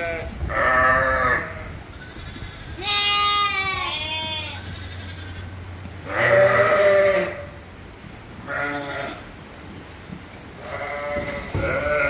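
Sheep bleating repeatedly, about six separate calls of roughly a second each, some higher-pitched and some lower.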